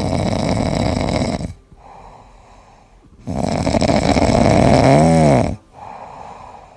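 Loud snoring: two long, rasping snores, each followed by a quieter breath. Near the end of the second snore there is a brief whistling tone that rises and falls.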